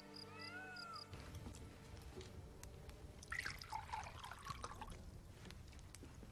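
A music cue ends about a second in. Then comes faint background sound with a few light clicks, and a brief wavering call in the middle that sounds like an animal, cat-like.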